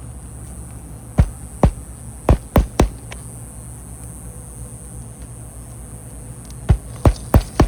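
Hammer driving roofing nails through a replacement shingle: five sharp strikes about a second in, then four more near the end, over a steady low hum.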